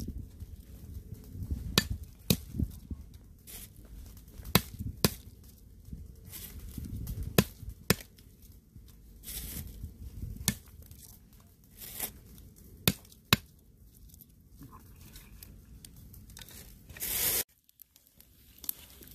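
Large knife cutting garlic cloves on a wooden block: sharp, irregular knocks of the blade against the wood, with rustling and crinkling between the strokes.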